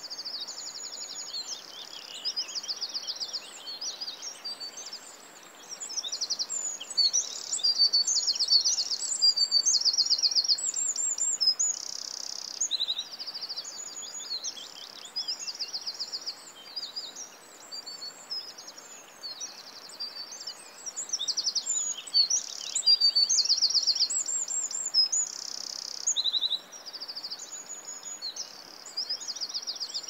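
Songbirds singing: a dense chorus of high, rapidly repeated chirps and trills that goes on without a break and swells louder twice, over a faint steady background hiss.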